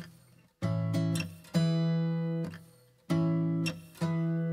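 Background music of strummed acoustic guitar chords, a new chord struck about once a second, each ringing and then fading away.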